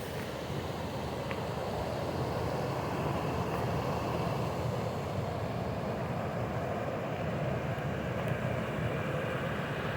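Creek water rushing, a steady low rush that swells a little over the first few seconds and then holds.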